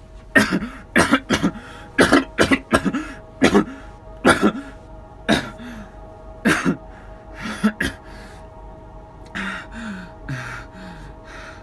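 A young man coughing hard in repeated fits, about fifteen harsh coughs in quick clusters, then softer hacking and throat clearing near the end. It is an acted portrayal of the persistent cough of pulmonary tuberculosis.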